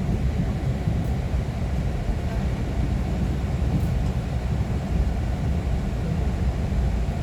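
Steady low rumble of a Mugunghwa passenger train running along the track, heard from inside the carriage.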